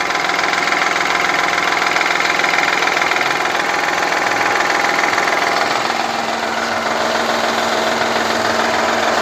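Honda Elysion's 3.0-litre V6 with cylinder deactivation idling with a steady rattling knock, heard clearly at the oil pan. The mechanics trace the knock to a timing-belt tensioner that does not keep the belt tight.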